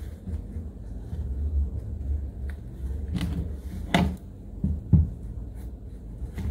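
A high-top sneaker being handled and set on a tabletop: a few short knocks of the gum rubber sole against the table about three to five seconds in, over a steady low rumble.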